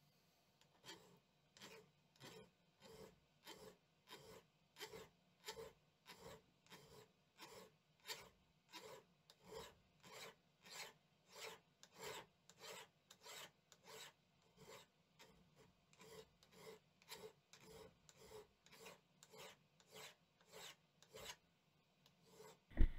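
Hand file rasping along the steel blade of antique Henry T. Seymour shears in steady strokes, about one and a half a second. A single loud knock comes just before the end.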